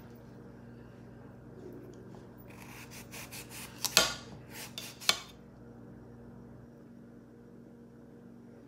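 Kitchen knife shaving the rind off a pumpkin: a few scraping strokes between about two and five seconds in, with two sharp clicks, the louder one about halfway.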